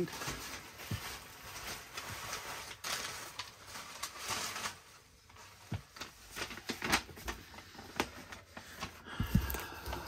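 Cardboard box and packaging being handled: scattered taps, scrapes and rustles of irregular timing.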